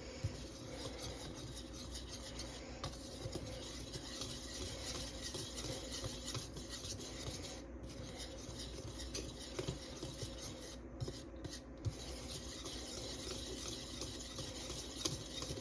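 Small wire whisk stirring dry flour and baking soda in a plastic bowl: a soft, steady scratching and rubbing, with small ticks here and there from the wires against the bowl.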